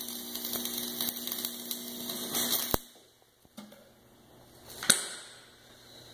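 Electric arc welding on steel: the arc's steady crackle and hiss with a low hum under it, stopping abruptly nearly three seconds in. A single sharp click follows about two seconds later.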